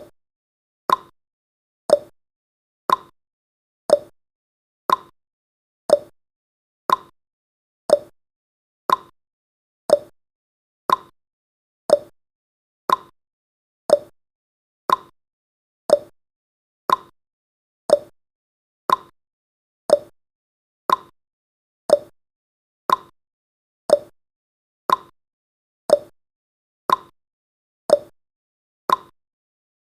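Countdown timer's ticking sound effect: one short, sharp tick every second, evenly spaced, with silence between the ticks.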